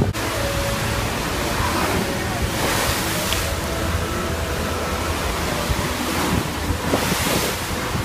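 Water in a ship's swimming pool sloshing and splashing in big waves as the ship rolls. It surges twice, about three seconds in and again near the end, with wind on the microphone.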